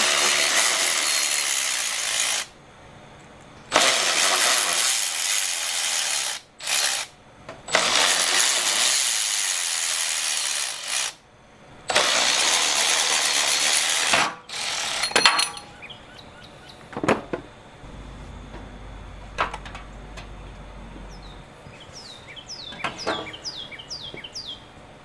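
A power tool run in four bursts of two to three seconds each, with short pauses between, followed by quieter light metallic clicks and knocks.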